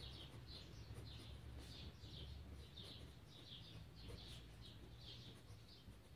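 Faint squeaks of a felt-tip marker on workbook paper during handwriting, a short squeak with each stroke, about two a second, over a low steady hum.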